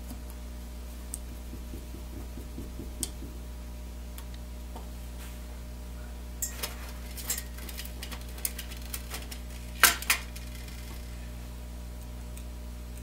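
Light clicks and metallic clinks of small screws and a screwdriver being handled and set into a small plastic microphone housing, scattered and then more frequent, the loudest two close together about ten seconds in, over a steady low hum.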